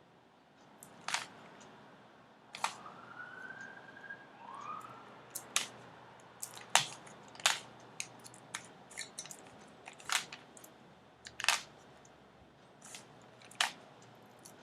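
Rubik's cube being turned by hand: short plastic clicks and clacks of the layers snapping round, coming at irregular intervals about a dozen times. Two faint brief whistling tones rise and level off about three to four seconds in.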